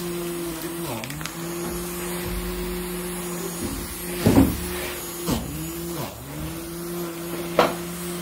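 Small DC motor spinning a red tip against a gritty surface, running with a steady hum. Its pitch dips briefly a few times as it is pressed down and slowed, and short scraping bursts come about four, five and seven and a half seconds in.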